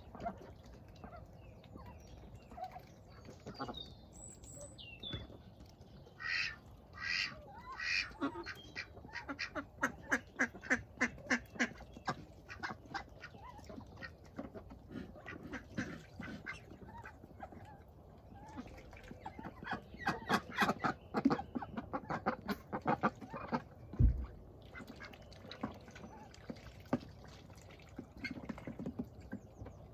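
Domestic ducks quacking, with quick runs of short quacks and a few longer calls. A single low thump comes near the end.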